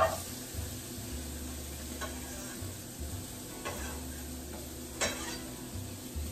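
Diced onion sizzling as handfuls of it are dropped into hot oil in a skillet. The sizzle is steady, with a sharper crackle about four times as new handfuls land.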